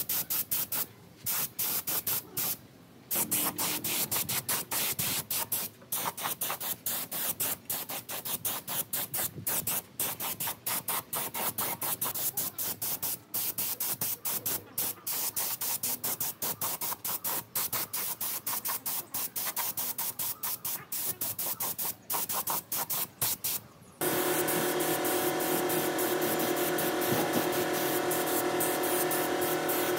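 Rapid, repeated bursts of hissing spray with short gaps between them, like a spray gun or air nozzle worked in short pulls. About 24 s in they give way to a steady mechanical hum with a clear tone.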